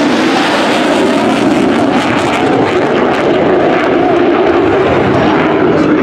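Loud, steady jet roar from an F-35A Lightning II's single F135 afterburning turbofan as the fighter pulls a hard, high-G turn.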